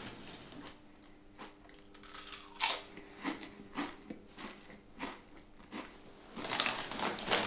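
Potato chips being bitten and chewed, a few separate crunches, the loudest a little under three seconds in. Near the end a hand rummages in the plastic chip bag, a denser run of crackling.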